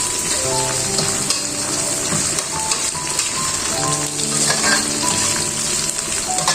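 Food sizzling steadily as it fries in a pan, with a few small ticks. Soft instrumental music with held notes plays over it.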